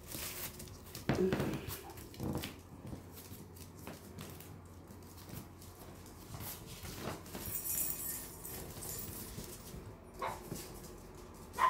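Yorkshire Terrier puppies playing: a few short, scattered yips and whimpers among the scuffle of their play, the loudest about a second in.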